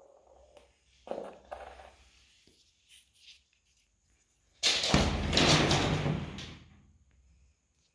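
A loud rustling, rubbing noise lasting about two seconds, past the middle, after a few faint knocks and scuffs.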